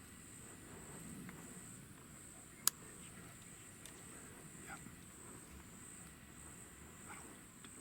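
Steady, high-pitched drone of insects, with one sharp click nearly three seconds in.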